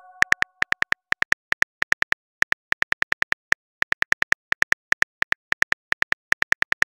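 Phone keyboard typing sound effect: a rapid run of short key clicks, about eight to ten a second in short bursts with brief gaps, as a message is typed out. A chime from the previous message fades out at the very start.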